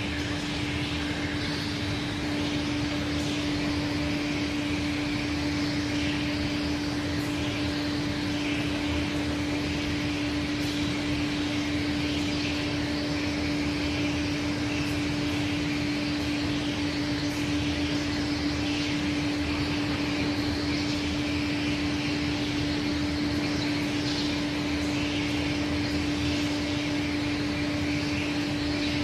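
Aschersleben SZ 2000x1500x9000 slideway grinding machine running and grinding a workpiece with its tilted grinding head: a steady hum with an even hiss over it.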